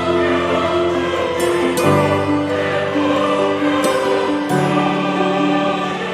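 Background music: a choir-like wash of held chords that change about every two seconds.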